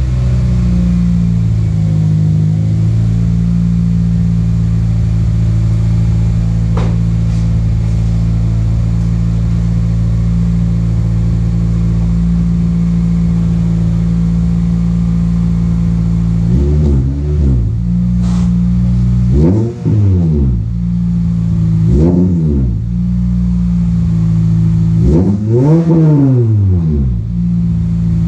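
Toyota Celica GT-S's 2ZZ-GE four-cylinder engine running with its cat-back exhaust removed. It idles steadily, then from about halfway through it is revved in several short blips that rise and fall, the last one near the end the highest and longest.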